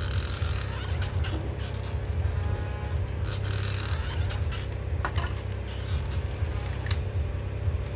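Excavator digging sand: a steady low motor hum with gritty scraping and several sharp knocks as the bucket works.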